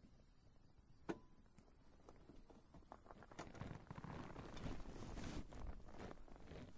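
Faint handling noise: a single sharp click about a second in, then irregular rustling and light knocks of clothing and gear as the camera is moved.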